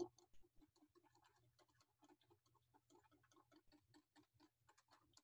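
Utensil stirring a thick lentil batter in a stainless steel bowl, faintly clicking against the metal in a steady rhythm of about five strokes a second.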